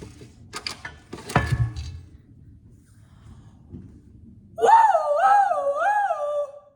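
A few knocks and clicks of stove parts being handled, then a woman's loud, drawn-out vocal outburst lasting about two seconds. Its pitch wavers up and down three times and then settles before it stops.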